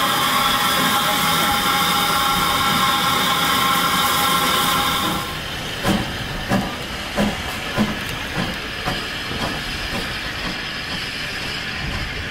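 Steam locomotive 30541, a Southern Railway Q class 0-6-0, hissing loudly with steam at close range. About five seconds in, this gives way to the locomotive pulling away with slow exhaust chuffs, roughly one every two-thirds of a second, gradually quickening.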